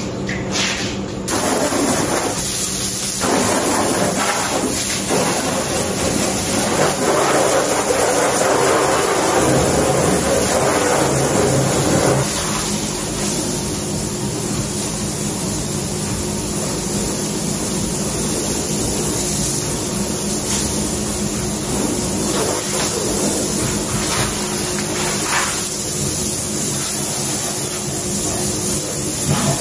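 Water spraying from a garden hose nozzle onto a car body as it is rinsed: a steady hiss that drops a little about twelve seconds in, with a steady hum beneath it.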